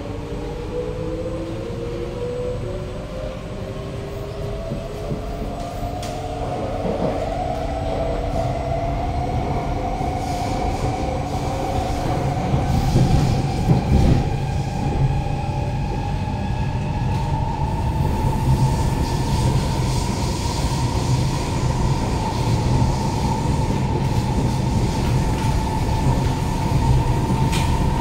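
Kawasaki–CRRC Qingdao Sifang C151A MRT train accelerating, heard from inside the carriage. The traction motors' whine rises steadily in pitch and levels off about two-thirds of the way through as the train reaches running speed, over a low rumble of wheels on the rails that grows from about halfway.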